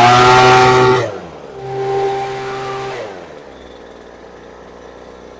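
Poulan Pro gas leaf blower's two-stroke engine revved at full throttle, dropping back about a second in, revving briefly again, then settling to a low idle. The engine is being tuned at the carburetor's low-speed screw to bring the idle down after it ran a little rich.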